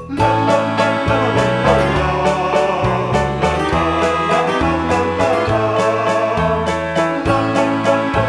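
Upbeat background music with a steady beat and plucked-string instruments.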